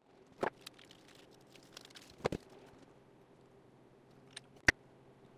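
Handling clicks as small engine parts, tappets for the TR4 block, are picked up and readied: three sharp clicks, the loudest near the end, over a faint low steady hum.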